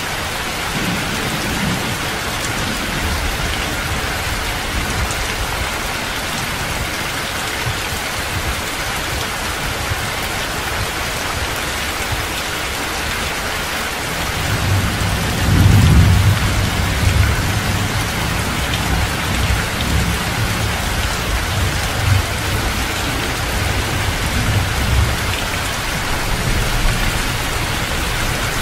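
Heavy rain pouring down steadily. About halfway through, a low rumble of thunder builds, loudest a second or two after it starts, then rolls on in uneven waves under the rain.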